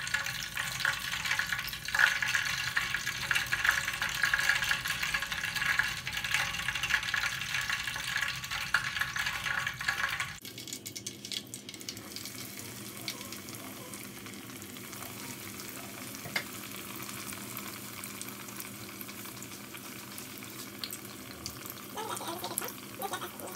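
Hot oil sizzling and crackling as filled spring-roll-wrapper pastries deep-fry in a pot. About ten seconds in the sizzle drops abruptly to a quieter, steadier level.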